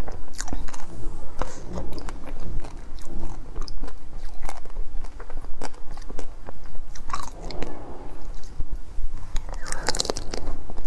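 Close-miked biting and chewing of a chocolate-coated ice cream bar: the hard chocolate shell cracks and crunches in many sharp, irregular bites, with wet chewing between them.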